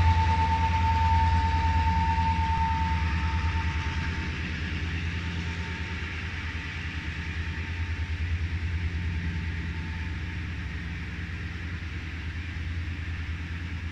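Diesel locomotives of a work train pulling away up a grade: a steady low engine drone with a fine pulsing beat that slowly fades. A thin high whine sounds over it at first and dies away within about four seconds.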